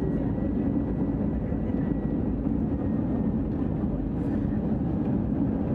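Steady jet-engine and airflow noise inside the cabin of an Airbus A320-200 on approach, a constant low rumble. A faint high tone rides on it and fades out about halfway through.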